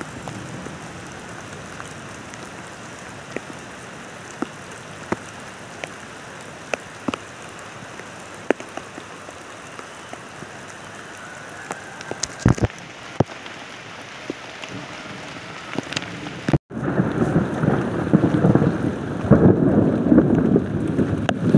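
Steady rain falling, with scattered heavy drops ticking sharply and one loud crack about twelve seconds in. After a cut about sixteen seconds in, the rain is louder and denser, close by under a plastic tarp.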